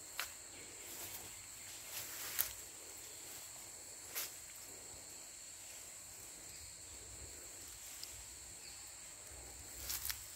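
Steady high-pitched chirring of insects, with a few soft clicks and rustles from the cast net being gathered and handled; the rustling picks up near the end.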